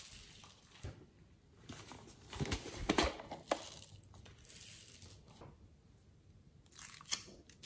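Foam beads shaken out of small plastic jars into a glass dish full of beads: bursts of light rustling and crinkling pours, with a few sharp plastic clicks from handling the jars.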